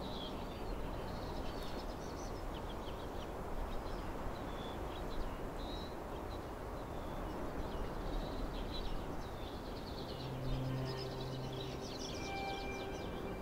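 Open-field ambience: a steady rush of wind with many small birds chirping. About ten seconds in, a few held music notes come in softly.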